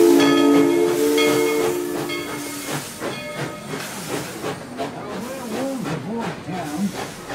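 Steam locomotive whistle sounding a chord of several tones, held about two seconds and then cut off, over hissing steam. The hiss and the running of the train carry on, quieter, after the whistle stops.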